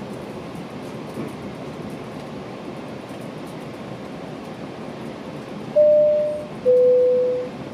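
GO Transit commuter train running steadily along the rails, heard from inside the coach. Near the end a two-note falling chime sounds, the onboard PA alert before a station announcement.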